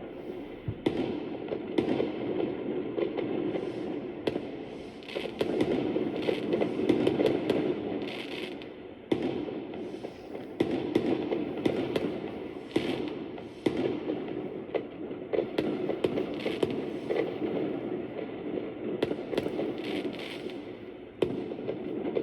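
Fireworks going off: a dense run of sharp pops and crackles in clusters every few seconds, over a steady low rumble.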